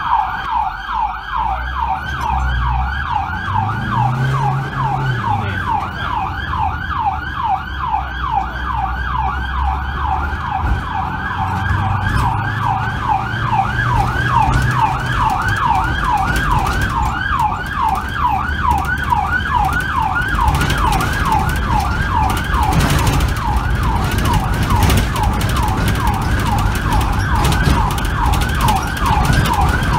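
Fire brigade rescue ambulance's siren in fast yelp mode, about three rising sweeps a second, heard from inside the moving Fiat Ducato van over its engine and road rumble while it runs to an emergency call.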